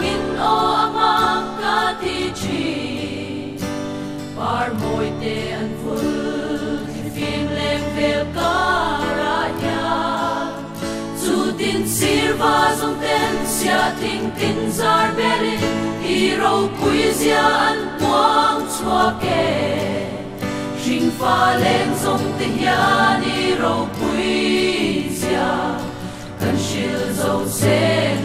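A choir singing a Christian hymn, phrase after phrase, with short breaths between phrases.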